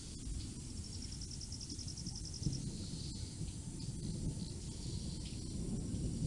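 Outdoor storm ambience: a low, uneven rumble runs throughout. Over it, a high, rapidly pulsing trill of about ten pulses a second lasts about a second and a half after the start, and a few fainter high chirps come later.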